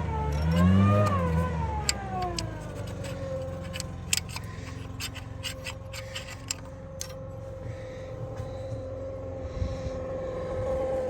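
Audi A5 2.0 TDI diesel engine with a failed turbocharger. It revs briefly about a second in, and the pitch slides down as it drops back. It then runs on with a steady whine and scattered rattling clicks.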